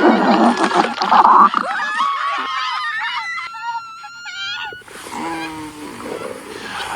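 Dog-like vocal sounds: a rough growl, then high, wavering whines. About two-thirds through they give way to a noisy, rushing gurgle.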